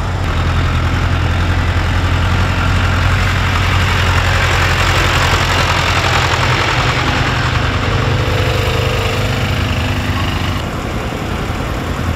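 Farm tractor engine running steadily with a deep low hum as a tractor drives slowly past close by. The sound fills out in the middle and changes abruptly about ten and a half seconds in.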